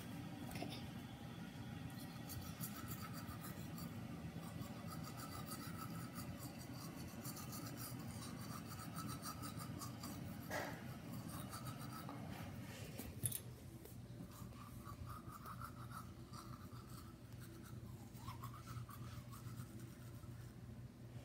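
Manual toothbrush scrubbing teeth: quick, faint rasping strokes of the bristles, lighter in the last third.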